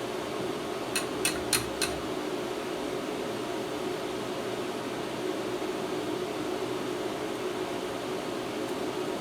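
Steady whirring hum of a fan, with four quick, sharp clicks about a second in.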